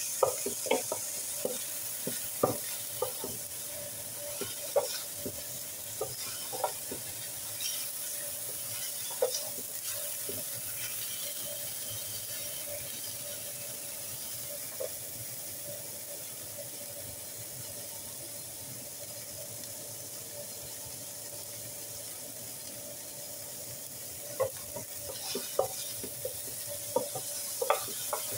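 Peas, diced carrots and edamame sizzling as they sauté in a skillet, with a wooden spoon scraping and tapping the pan as they are stirred. The spoon knocks come thickly for the first ten seconds or so, almost stop through the middle, and pick up again near the end while the steady sizzle goes on.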